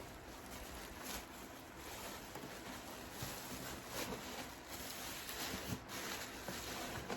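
Faint rustling and handling noises with scattered soft taps, as a ventriloquist dummy is brought out and handled.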